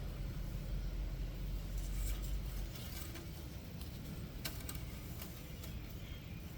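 A few faint small clicks and rattles from pulling and wiping an engine oil dipstick to check the level after an oil change, over a low rumble that eases about two and a half seconds in.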